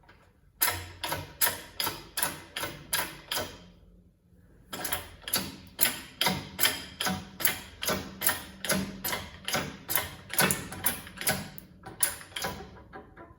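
Repeated sharp taps on metal, about two or three a second, with a short pause about four seconds in before a longer run of taps.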